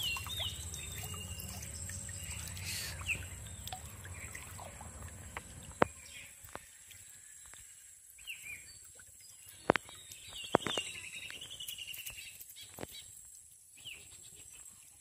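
Birds calling outdoors: short chirps, and a longer warbling call just past the middle. Water trickles from the lifted bamboo fish trap during the first few seconds and fades out, and there are a few sharp clicks.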